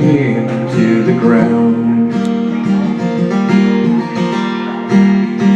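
Acoustic guitar strummed in a steady rhythm, chords ringing: the instrumental opening of a live song.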